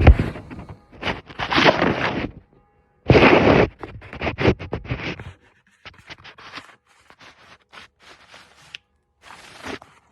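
Irregular sharp clicking from a car transmission, mixed with louder scraping or rustling bursts in the first few seconds.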